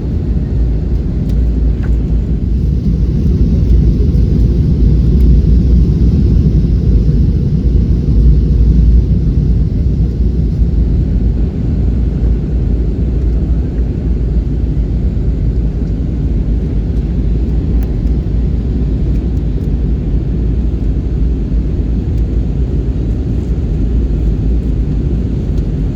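Airliner cabin noise heard from inside the passenger cabin: the steady low roar of the jet engines and airflow, a little louder a few seconds in.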